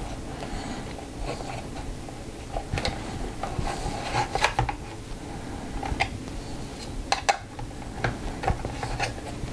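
Safariland ALS polymer holster and its retention parts being handled and fitted together by hand: scattered small clicks and taps of hard plastic, coming in irregular clusters.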